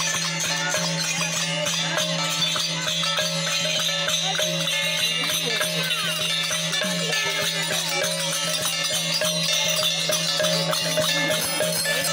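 Traditional Indian music: a steady drone under fast jingling, rattling percussion.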